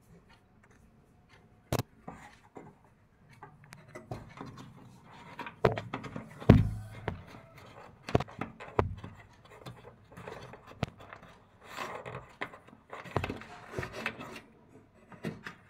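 Scattered knocks, scrapes and rubbing close to the microphone, with one loud thump about six and a half seconds in: a gray langur pawing and scraping at a sliding window's frame and track, picking out stuck peanuts.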